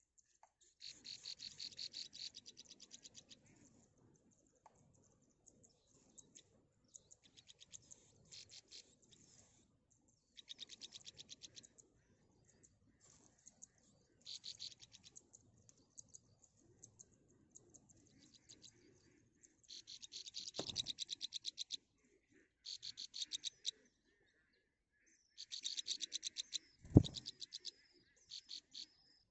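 Nestling songbirds begging: bouts of rapid, high-pitched chirps, each a second or two long, repeated and coming closer together in the second half. Two dull thumps break in, one about two-thirds of the way in and a louder one near the end.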